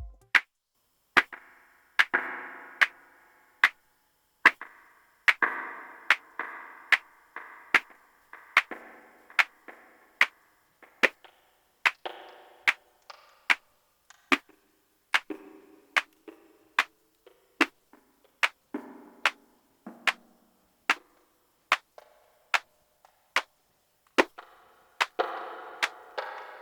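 Electronic percussion hits processed through a Eurorack modular synthesizer as an effects unit: sharp clicks about every 0.8 s, each followed by a short filtered, ringing tail whose pitch and length change from hit to hit.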